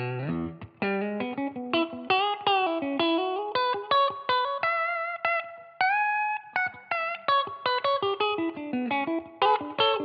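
PRS 509 electric guitar played through an amplifier: fast single-note lead lines, with a couple of longer held notes around the middle.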